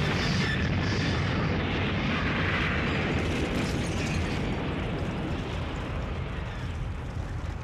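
Film explosion sound effect: a dense, sustained blast with crackling sparks, the electrical explosion of the man-eating plant. It slowly dies away toward the end.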